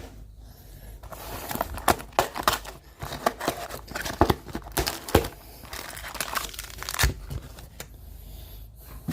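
Plastic shrink wrap being torn and crinkled off a sealed box of hockey cards, heard as a run of irregular sharp crackles and tears.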